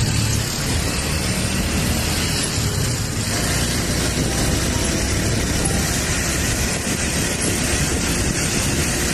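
Steady engine rumble with wind and road noise, heard from aboard a moving vehicle in city traffic.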